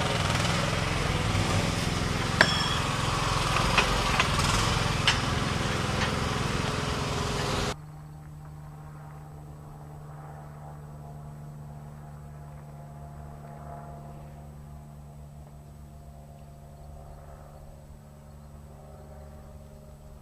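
A steady engine-like rumble with a few sharp knocks, cut off abruptly about eight seconds in, leaving a faint steady hum.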